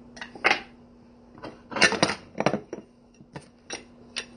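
Kitchen utensils knocking and clinking while a lemon is prepared: a string of short, sharp knocks at uneven intervals, the loudest cluster about two seconds in.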